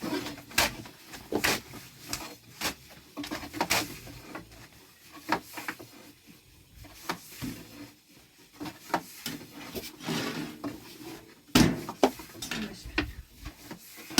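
Masonry work: irregular sharp knocks and clinks of stones or bricks being set and knocked into place, about one a second, with the loudest near the end.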